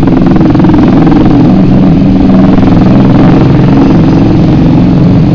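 A vehicle engine running loud and steady, holding an even pitch throughout.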